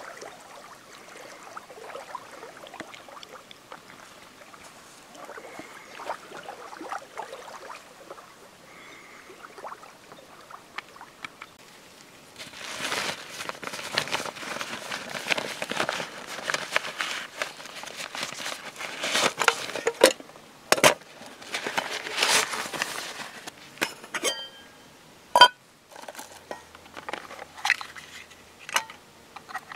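Bisgear camping cookware being unpacked by hand: the nylon drawstring sack rustles for several seconds, then the metal pots and lid clink and knock as they are set down on a wooden stump. One clink about 25 seconds in rings briefly.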